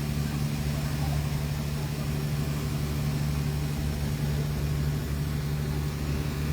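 Boat engine running steadily while under way, a constant low drone with no change in speed.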